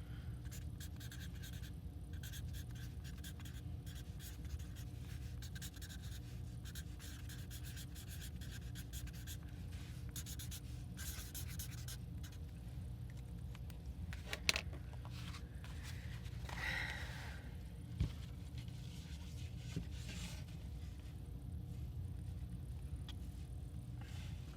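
Pen writing on paper in quick scratchy strokes, with a couple of light taps around the middle, over a steady low hum.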